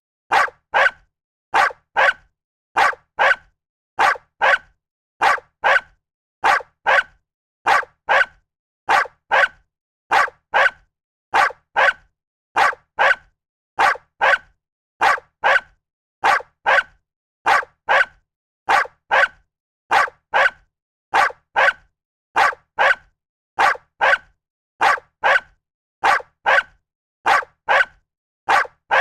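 A dog barking over and over in a steady rhythm, mostly two barks in quick succession, about one pair every second and a half, with silence between.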